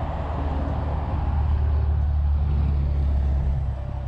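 Low rumble of a passing road vehicle, swelling through the middle and easing near the end.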